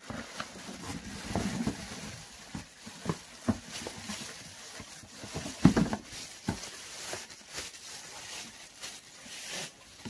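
Clear plastic packaging crinkling and rustling as a vacuum cleaner's corrugated hose and attachments are pulled from their bags in a cardboard box, with scattered knocks; the loudest knock comes a little before six seconds in.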